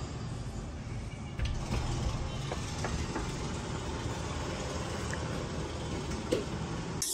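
Steady wash of city street traffic from far below: a low rumble under an even hiss, a little louder about a second and a half in, with a few faint clicks.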